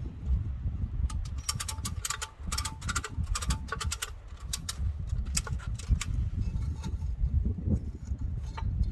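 Quick, irregular runs of sharp metallic clicks, from about one and a half to six seconds in, as the strap and steel track hardware are worked on a skid steer. A low wind rumble on the microphone runs underneath.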